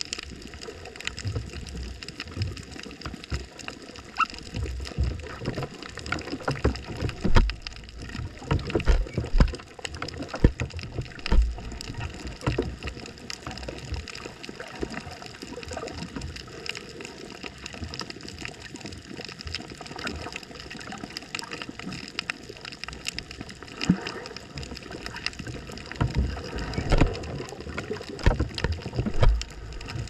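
Underwater reef ambience, heard through an underwater microphone: irregular gurgling and sloshing water with low surges, plus many brief scattered clicks.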